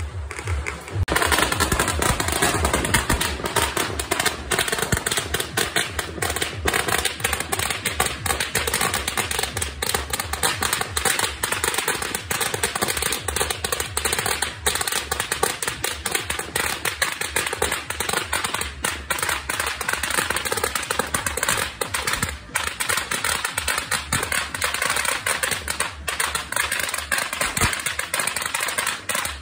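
A long string of firecrackers going off in a rapid, continuous crackle of sharp pops, starting about a second in.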